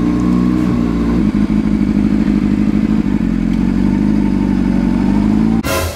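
Motorcycle engine running steadily at low speed, its note shifting slightly about a second in. Near the end, short loud rushes of noise cut across it.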